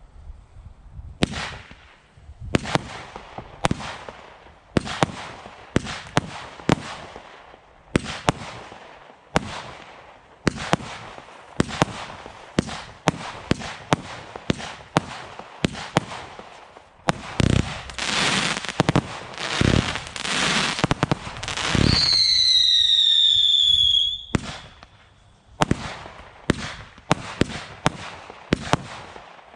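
Black Cat Codebreaker firework cake firing shot after shot, a sharp bang about once a second. Around two-thirds through comes a denser, louder run of bangs and crackle, then a falling whistle lasting about two seconds, before the steady shots resume.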